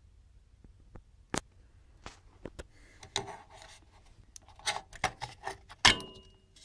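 Metal shield cover being worked loose and lifted off a receiver's aluminium chassis compartment: scattered light clicks and scraping, closing with one sharper metallic click near the end.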